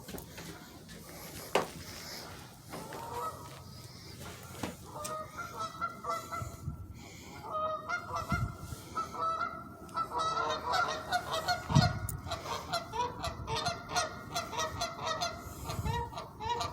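Several geese honking repeatedly, the calls growing more frequent and overlapping from about halfway through. A few low thumps are mixed in.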